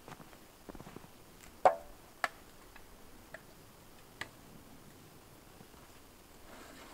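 Metal maple-sap buckets knocking as they are carried and handled: a few scattered sharp clanks, the loudest about a second and a half in with a brief metallic ring, then two or three lighter knocks.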